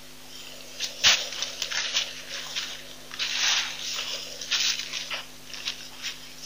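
Rhinos moving close to the microphone make a string of irregular short scrapes and rustles. The loudest comes about a second in and a longer one falls around the middle, over a steady low electrical hum.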